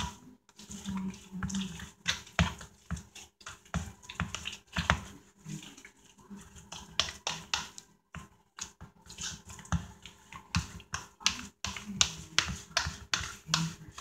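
Fork stirring thick potato salad around a plastic bowl: a busy run of irregular clicks and short scrapes as the fork hits the bowl and works through the food, with a brief pause about eight seconds in.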